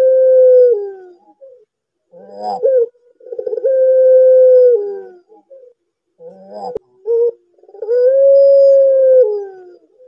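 Barbary dove of the long-voiced puter pelung type cooing. Each call opens with a quick stuttering coo, then draws out into one long, level coo that drops in pitch at the end. The call repeats about every four seconds.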